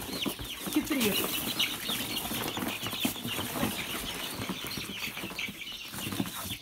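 A flock of young chickens cheeping rapidly, many short falling chirps overlapping, with wings flapping as the birds are tipped out of a cardboard box into their run.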